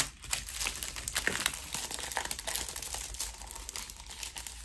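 Crinkling and rustling of large diamond-painting release paper sheets as they are unfolded and handled: a flurry of small crackles that thins out toward the end.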